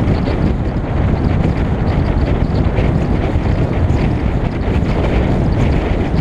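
Wind buffeting the microphone of a camera mounted on the outside of a moving Lincoln Mark VIII, a loud steady rush with the car's road noise beneath.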